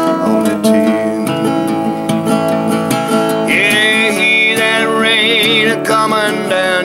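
Acoustic guitar strummed in a slow country song, with the singer's wordless vocal line joining about halfway through.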